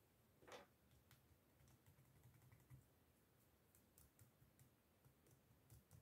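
Near silence with faint scattered light clicks and taps, and a short soft rustle about half a second in, from hands working yarn into a knot on a small crocheted toy.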